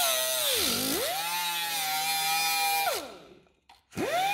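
Angle grinder cutting into a metal pipe: its motor whine sags sharply under load about half a second in, recovers and runs steady, then winds down after about three seconds and spins up again near the end.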